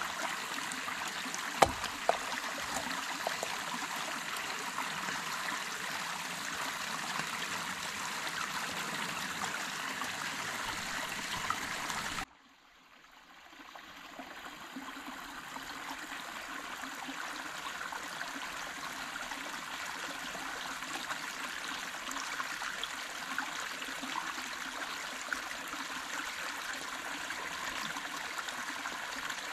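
Shallow rocky stream running steadily. Two sharp knocks come about two seconds in, and near the middle the water sound cuts out suddenly, then swells back up over a few seconds.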